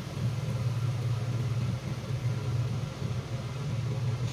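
A steady low mechanical hum, with firm tofu slices frying in a little oil in a wok, an even soft sizzle underneath.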